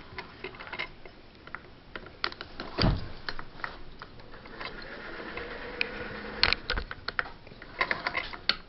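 Irregular mechanical clicks and knocks from a hand-crank sewing machine being handled, with a dull thump about three seconds in.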